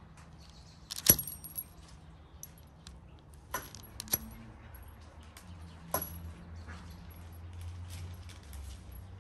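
Metal fluted pastry wheel clicking and clinking as it cuts through pie dough on baking paper: a few sharp metallic clicks, the loudest about a second in, with more a few seconds later.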